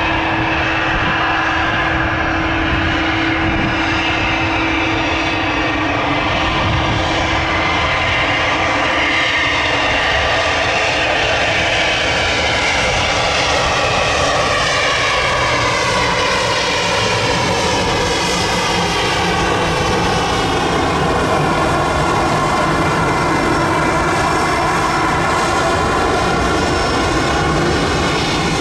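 Airbus A319 twin-engine jet arriving to land, its engines whining over a dense low rumble. From about halfway through, the engine tones fall steadily in pitch as it passes.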